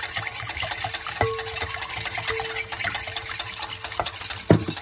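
Wire whisk beating a runny egg and coconut-milk batter in a glass bowl: fast, even clicking strokes against the glass. A sharp knock with a short ring about a second in, and a louder knock near the end.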